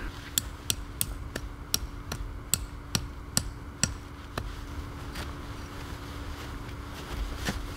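A tent stake being hammered in: about ten sharp knocks, roughly three a second, then a few more spaced-out knocks later.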